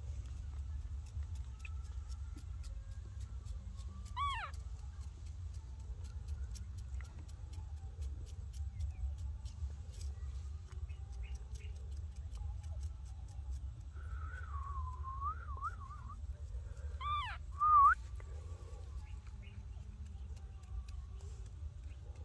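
Baby macaque giving a few high, arching coo calls: one about four seconds in, a wavering call later on, and two more near the end, the last the loudest. A steady low rumble sits underneath.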